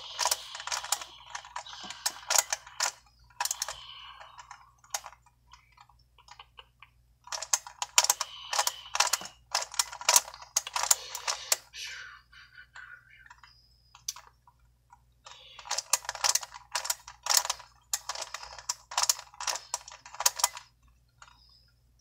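Plastic pieces of a Cube Extreme twisty puzzle clicking and clacking as it is turned quickly by hand. The turns come in three flurries with short pauses between, the last stopping about a second before the end.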